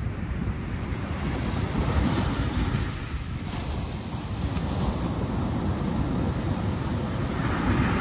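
Sea waves breaking on a pebble beach and washing back: a continuous rush of surf that swells about two seconds in and again near the end.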